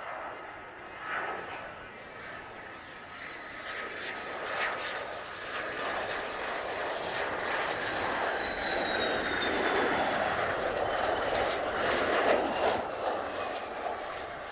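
Mitsubishi F-2 fighter's F110 turbofan jet engine passing close by. A high whine holds and then drops slowly in pitch as the jet goes past, while the rushing roar builds to its loudest near the end.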